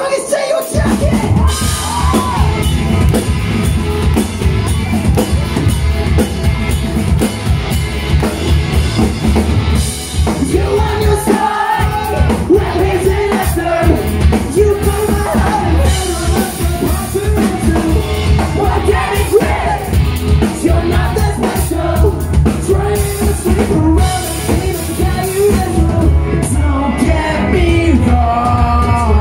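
Live rock band playing loudly, heard from the crowd: electric guitars, bass and drums under a sung lead vocal. The bass and drums drop out for a moment about twelve seconds in, then come back.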